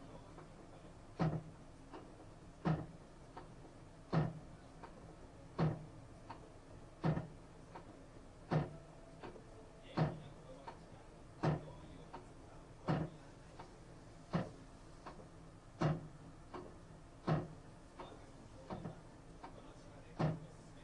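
Panasonic NA-FA80H3 washing machine near the end of its spin cycle making a regular knock about every one and a half seconds, with fainter ticks between, over a low hum. The owner suspects it is an abnormal noise.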